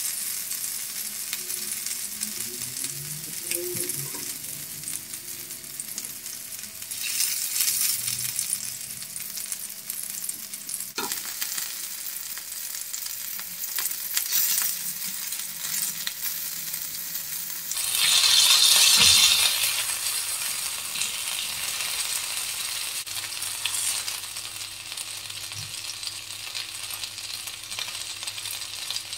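Spice-coated fish steaks shallow-frying in hot oil in a pan, sizzling steadily, with a louder flare of sizzling about two-thirds of the way through.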